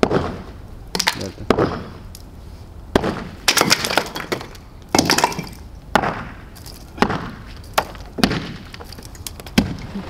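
A sledgehammer smashes natural-stone cladding and the concrete behind it. About a dozen cracking strikes land roughly once a second, some in quick pairs.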